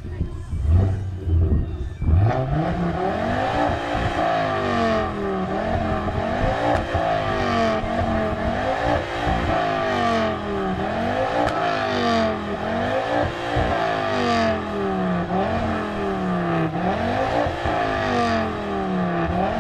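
Ford Focus hot-hatch engine revved hard over and over for a rev-off: a low idle for the first couple of seconds, then about nine rises and falls in pitch, roughly one every two seconds, with short crackles near some of the peaks.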